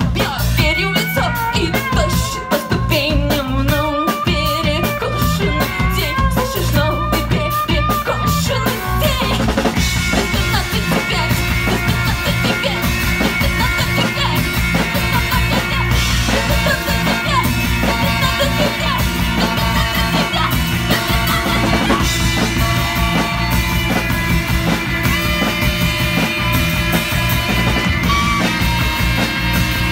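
Live post-punk rock band with drum kit, electric guitars and saxophone, played loud through a club PA. For about the first nine seconds the band plays choppy, stop-start stabs, then it settles into a dense, steady full-band groove with long held notes.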